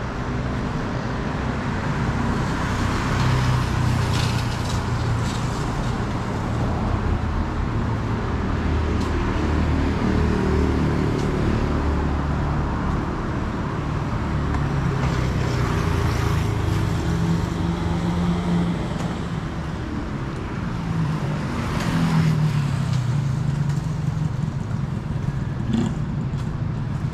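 City street traffic: cars running past one after another, their engine hum swelling and fading with each pass.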